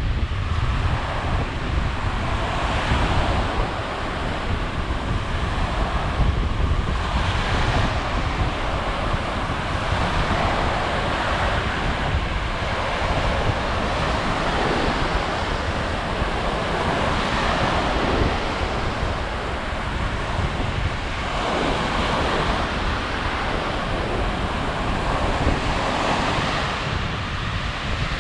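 Lake Michigan waves breaking on the beach, swelling and falling back every few seconds, with wind rumbling on the microphone.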